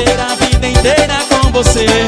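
Upbeat Brazilian keyboard-band music with no singing: an electronic keyboard melody over a fast, steady drum beat.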